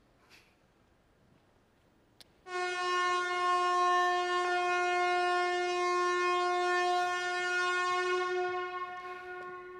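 Colliery pit hooter sounding one long, steady blast that starts about two and a half seconds in and fades away near the end, the signal for the miners' shift.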